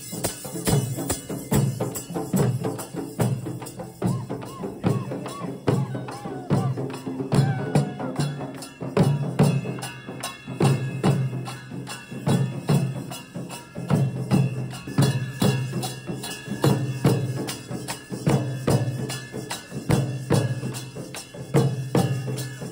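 Dollu Kunitha folk drumming: several large dollu barrel drums beaten with sticks together in a fast, driving rhythm.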